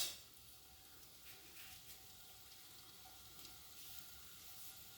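Sliced okra frying in hot oil in a kadai: a faint, steady sizzling hiss, opened by a sharp clack at the very start.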